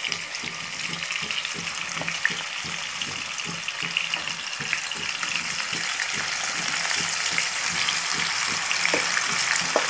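Marinated chicken sizzling and frying as it goes into hot oil and ghee in a pan: a steady frying hiss that grows slightly louder, with a couple of light clicks.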